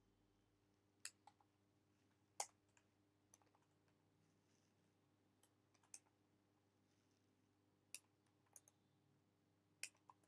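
Slow, scattered keystrokes on a computer keyboard: about a dozen single sharp clicks at irregular gaps over near silence.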